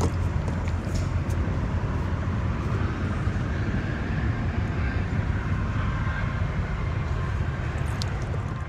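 Fuel nozzle pumping gasoline into a car's tank: a steady rushing flow over a constant low hum.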